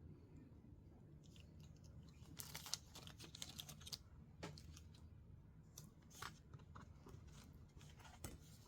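Paper being handled and shuffled: short crinkles, rustles and sharp clicks in several bursts, the busiest a couple of seconds in, over a faint, steady low background noise.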